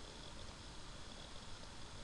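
Faint steady hiss of room tone, with no distinct sound.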